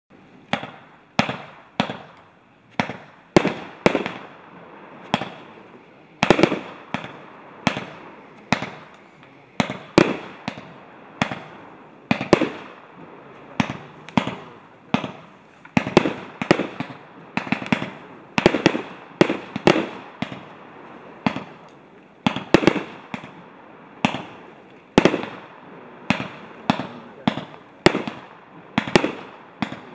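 A JW4070 'Moby Dick' consumer fireworks cake, a 49-shot, 30 mm-calibre compact, firing shot after shot: a steady run of sharp bangs, about one to two a second, some coming in quick pairs.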